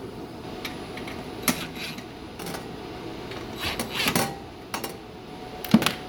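Sheet-metal access panel of an air-handler cabinet clanking and rattling as it is handled and pulled off. There are a few sharp metallic knocks, a busier clatter a little past the middle and the loudest knock near the end, over a steady low hum.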